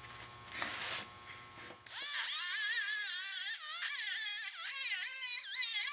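Pneumatic cutoff tool with a small worn abrasive disc, starting up about two seconds in and cutting sheet steel. It makes a high whine whose pitch wavers up and down as the load changes, with a couple of brief dips where the disc eases off the metal.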